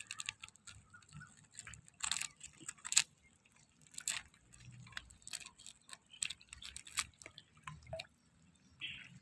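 Irregular clicks and crackles of green mussel shells being handled and pulled from a rock by hand, with a few louder snaps about two, three and four seconds in.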